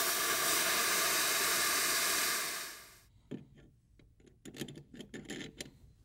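Handheld plasma cutter cutting through steel plate: a loud, steady hiss that fades out about halfway through. Then a few faint metal taps and clinks as the cut steel mount is fitted against the frame.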